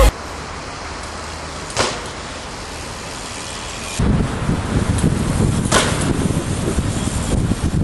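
Unedited outdoor camera audio: a steady hiss, then from about four seconds in a louder low rumble of wind buffeting the microphone, with two sharp clicks, one near two seconds in and one near six.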